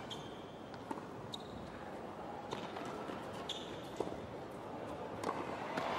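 Tennis rally on a hard court: sharp pops of racket strikes on the ball about every second and a half, with short squeaks of tennis shoes on the court in between.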